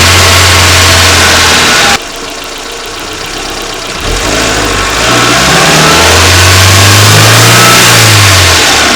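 Renault 1.2 turbo four-cylinder petrol engine running, heard very loud through a microphone under the bonnet. About two seconds in the sound drops suddenly and stays low for about two seconds. It then comes back and the revs rise and fall.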